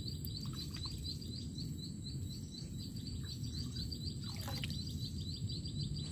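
Outdoor wetland ambience: a fast, even series of high chirps, about five a second, over a steady high whine and steady low background noise.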